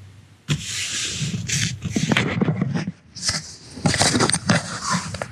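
Rubbing and scraping of a wheeled nylon gear bag being shifted on a car's rubber floor mat, with a second spell of rustling and sharp knocks from about three seconds in as a hand grabs at the camera.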